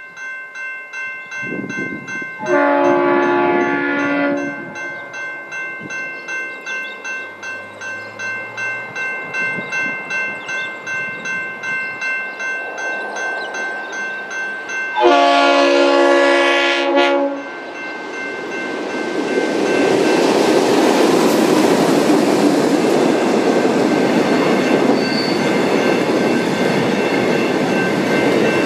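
Level crossing's General Signals Type 2 electronic bell ringing with a steady repeating ding while an approaching train sounds its horn twice, each blast about two seconds long, one near the start and one about halfway. Then the train runs over the crossing, its noise rising and holding loud over the bell.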